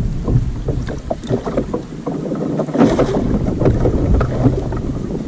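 Wind buffeting the microphone and water slapping and sloshing against a sit-on-top kayak's hull as it rocks, with small knocks of gear; a louder rush of water about three seconds in.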